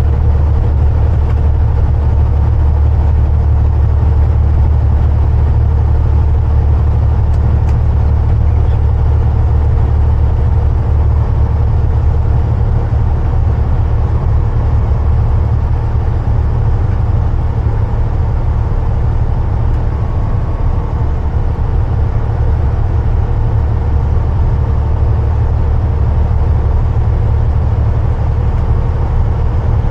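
Cab interior of a 2014 Freightliner semi-truck cruising at highway speed: a steady, loud low diesel engine drone mixed with road and tyre noise.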